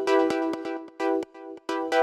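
Electronic background music: synthesizer chords pulsing on and off in a steady rhythm over sharp percussion hits.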